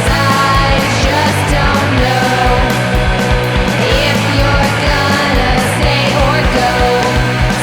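Loud rock music with a steady driving drum beat and sustained guitar and vocal lines.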